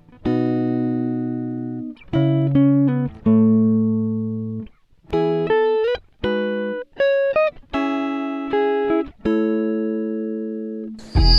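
Background music: a plucked-string instrumental, like guitar, playing a slow run of single notes and chords that each ring and fade.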